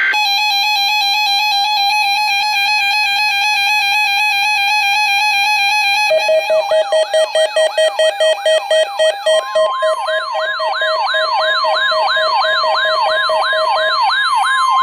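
Weather radio alert tones for a weekly test, several electronic alarms overlapping. A steady pulsing beep tone is joined about six seconds in by a fast warble sweeping up and down about three times a second, and about nine and a half seconds in by a steady higher tone.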